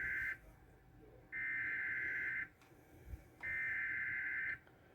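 Emergency Alert System SAME header data bursts, the screechy digital warble sent before a National Weather Service warning. One burst ends just as the sound begins, then two more about a second long follow with a one-second pause between each.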